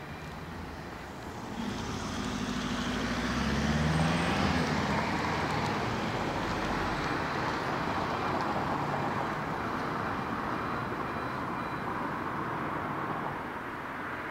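Street traffic: a motor vehicle's engine and tyres swell up about two seconds in and are loudest around four seconds, then a steady traffic noise carries on.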